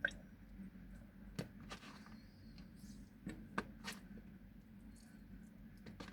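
Scattered light clicks and taps, about half a dozen, over a faint steady hum; the sharpest come right at the start and a cluster a little past halfway.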